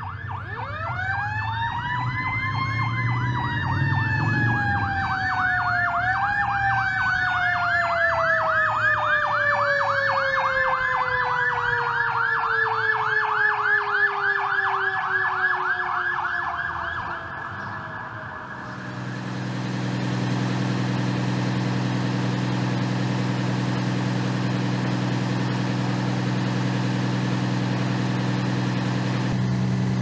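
Fire truck sirens: one wail rises quickly to a high pitch, gets a second brief boost, then slowly drops in pitch, over a fast electronic yelp. Partway through the sirens give way to a fire truck's diesel engine idling steadily.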